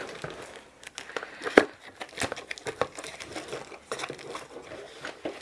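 Cardboard kit box being opened and plastic packaging crinkling, with scattered small clicks and one sharp click about a second and a half in.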